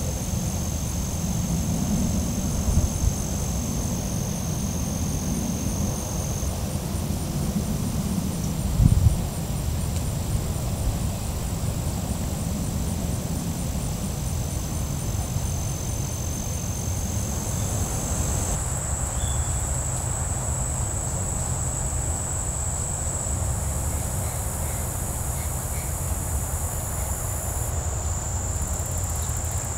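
Field insects trilling in steady, unbroken high tones, the pitch shifting about two-thirds of the way through. Beneath them runs a low rumble with two brief louder bumps early on.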